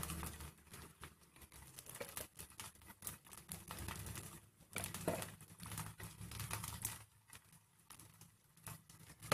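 Faint, scattered light crackles and soft taps as chopped tomato is dropped onto rava uttapam batter cooking on a tawa, with one sharper click about halfway through.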